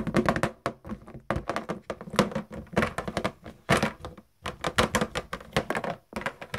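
Rapid, irregular tapping and clicking in quick runs with short pauses: hands handling small plastic toy figures and the phone right at its microphone, the toys knocking on a hard floor.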